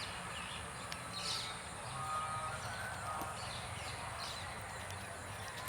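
Birds chirping and calling in short, scattered notes over a steady low background rumble.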